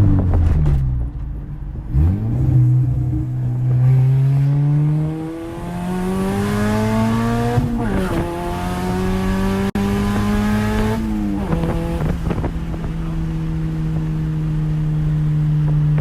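Turbocharged Honda Integra GSR four-cylinder engine pulling under acceleration: its pitch climbs through the revs and drops at gear changes about eight and eleven seconds in, then holds steady for the last few seconds.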